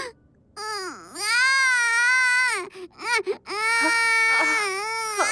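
A toddler crying and wailing: a short cry, then two long drawn-out wails, each about a second and a half to two seconds, voice-acted for an animated cartoon.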